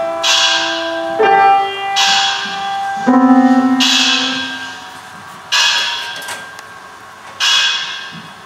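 Experimental electronic music from a laptop and keyboard: held, shifting pitched tones with a hissing noise burst that strikes and fades about every two seconds.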